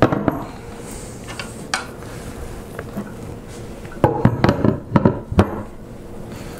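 Tormach machinist vise being set down and shifted on a metal vise mounting plate, seating onto the plate's locating keys: metal knocking and clanking. A knock at the start, a few light clicks, then a cluster of clanks about four to five and a half seconds in.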